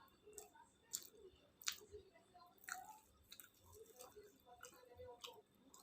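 A person chewing food with their mouth, faint and wet, with sharp lip smacks and mouth clicks about once a second, the loudest a little under two seconds in.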